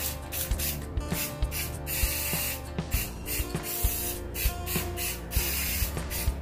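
Aerosol spray-paint can hissing in repeated short bursts as black paint is sprayed onto a shovel, with background music's steady beat underneath.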